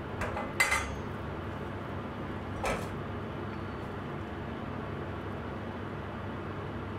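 A metal kitchen utensil clattering against a saucepan: a sharp clink about half a second in and a softer knock near three seconds, over the steady low rush of a pot simmering on a gas stove.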